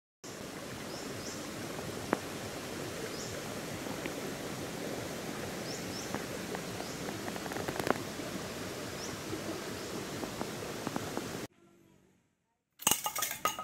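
Steady outdoor background noise with occasional light clicks and a few faint, short high chirps. It cuts off suddenly about eleven and a half seconds in, and after about a second of silence a loud, busy sound starts near the end.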